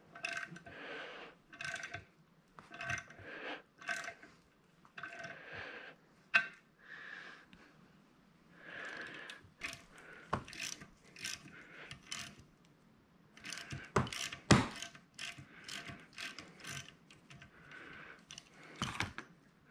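Socket ratchet clicking in short repeated bouts while the 14 mm bolts of an NP435 transmission's countershaft rear bearing retainer are backed out, with a few sharp metal clinks about two-thirds of the way through.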